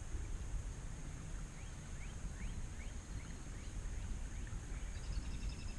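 Wild birds singing outdoors: a run of short, quick rising chirps, then a fast trill near the end, over a steady low rumble of wind on the microphone.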